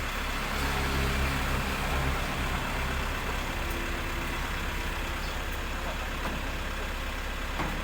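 Heavy vehicle engine idling steadily: a low, even hum, a little louder for the first couple of seconds.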